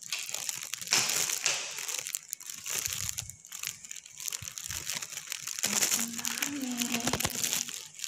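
Thin plastic crinkling and rustling close to the microphone in irregular spurts, with a few soft low thumps.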